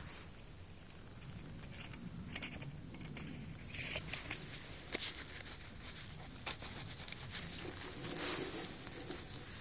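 Faint rustling of work gloves and dry grass during handling, with a short louder zip about four seconds in, a tape measure's blade running back into its case.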